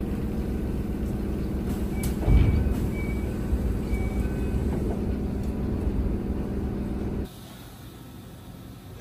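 Steady low hum inside a stationary Enoden (Enoshima Electric Railway) train car at a platform, with a loud thud about two seconds in and a few short high beeps. The hum drops away abruptly near the end.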